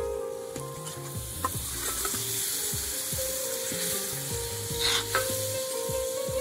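Fish pieces sizzling as they fry in hot oil and spice masala in a black pan, stirred with a metal spoon, with a brief louder burst about five seconds in.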